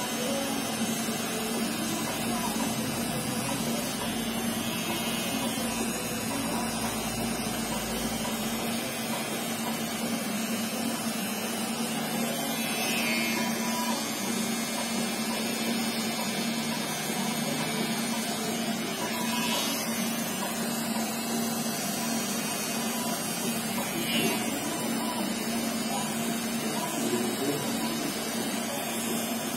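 Cordless T-blade hair trimmer running with a steady hum as it cuts hair close at the temple and sideburn of a fade.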